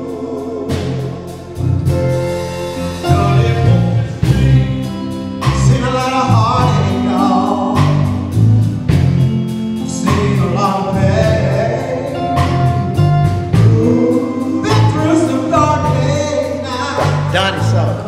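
Male gospel vocal group singing in harmony, backed by a band with steady bass notes and a regular beat.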